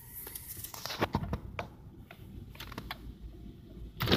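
Handling noise from a handheld camera being moved about inside a car: irregular light clicks and knocks, with a louder knock just before the end.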